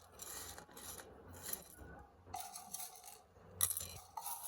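A spoon scraping and tapping against a small dish: a series of short, sharp scrapes and clicks.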